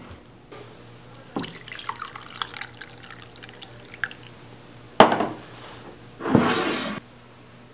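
Liquid being poured and splashing into a ceramic mug, a patter of small drips and splashes, then a sharp splash about five seconds in. A short rushing noise near the end cuts off suddenly.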